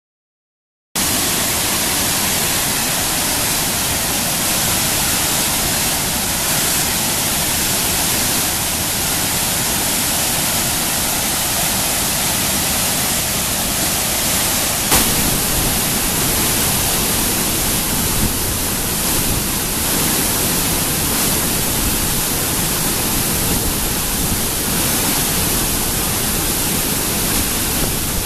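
A large waterfall on a mountain torrent, its water pouring down granite onto boulders in a loud, steady rush that starts abruptly about a second in. There is one short click about halfway through.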